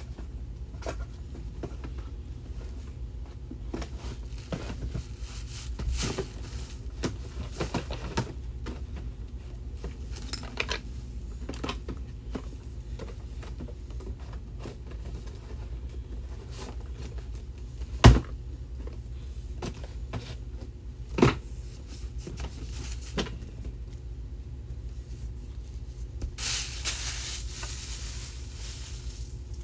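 Objects being handled and set down in a small room: scattered light clicks and knocks, a sharp louder knock about 18 seconds in and another about 21 seconds in, and a few seconds of rustling near the end, over a steady low hum.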